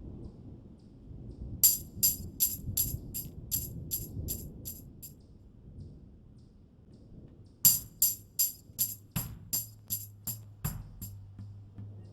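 Background music with a tambourine-like beat, about three strikes a second, in two runs separated by a pause of a couple of seconds, over a low rumble; a steady low tone sits under the second run.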